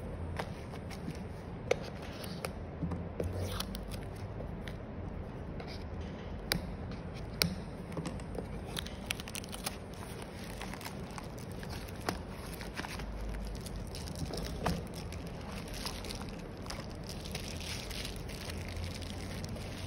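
Cardboard screen box and its bubble-wrap packing being handled: the box slides open, the wrapped screen is lifted out, and there is rustling and scraping with scattered sharp clicks.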